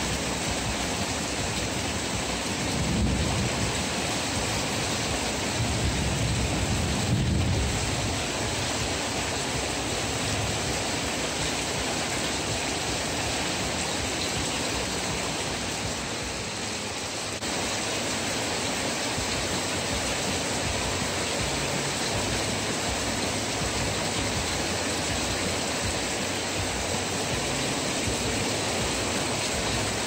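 Heavy rain falling steadily, heard from under a corrugated metal porch awning. A low rumble swells up twice, about 3 and 7 seconds in.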